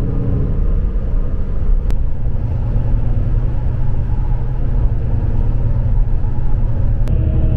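Steady low rumble of road and engine noise inside an express coach's passenger cabin at highway speed. The sound changes abruptly near the end.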